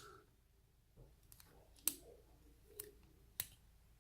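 About five faint, sharp clicks of small metal lock parts being handled, with the pins and tools tapping together as the lock is taken apart. The click just before the middle is the loudest.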